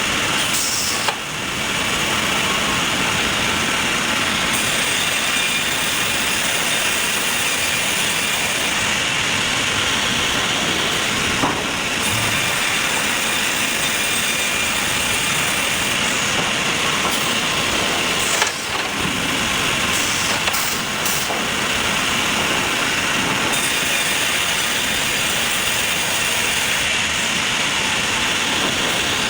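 Sawmill machinery running with a steady, dense mechanical noise, with a few short knocks, the sharpest about 18 seconds in.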